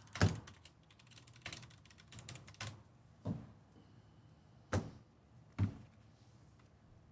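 Irregular clicks and knocks from keys and objects handled on a desk, about six or seven separate strokes spaced roughly a second apart, stopping near the end.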